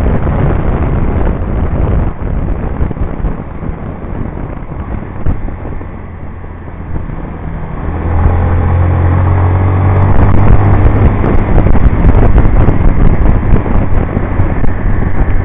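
Honda CBR125's single-cylinder engine running with wind rushing over the onboard microphone. The level dips in the middle, then about eight seconds in a steady engine hum comes in louder and stays.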